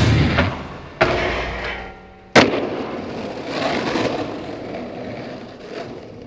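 Skateboard on rough asphalt: two sharp cracks of the board, about a second in and again near two and a half seconds, then the wheels rolling with a steady gritty rumble.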